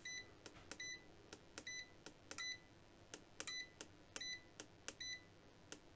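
Kaiweets KM601s digital multimeter giving a short key-press beep with each push of its arrow button, about eight in a row, roughly one every 0.7 s. Each beep comes with a faint click of the button and confirms a step to the next measurement function.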